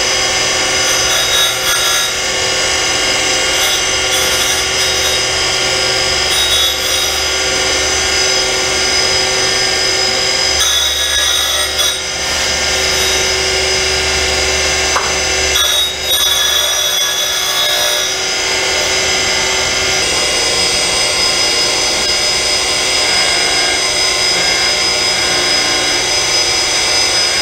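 Reid surface grinder running with a steady whine while the grinding wheel is dressed and dished on its side against a wheel dresser. The dresser scrapes against the spinning wheel in about five hissing passes in the first two-thirds, then only the grinder's steady running is heard.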